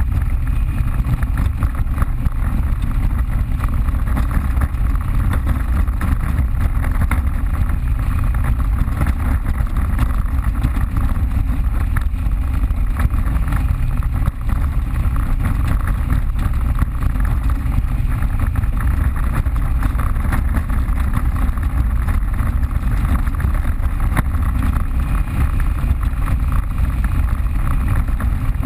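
Off-road vehicle engine running steadily as it rides a trail, loud and mostly low-pitched, with a steady rushing noise over it.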